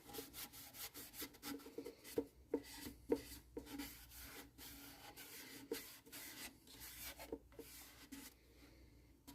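A paper towel wiping sanding sealer onto a ukulele's wooden body in soft, quick back-and-forth rubbing strokes, about two to three a second, which stop shortly before the end.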